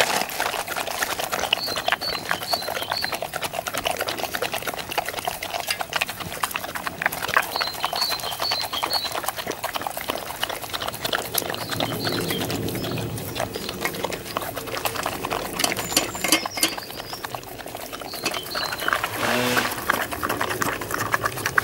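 Two boxer dogs eating smoked salmon from stainless steel bowls: continuous wet chomping and licking, with clinks of their muzzles against the metal bowls.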